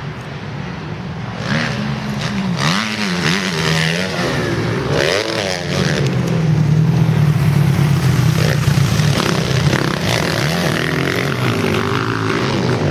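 Motocross bike engine revving on the track, its pitch rising and falling through repeated throttle and gear changes, then holding a steadier, louder note from about halfway through.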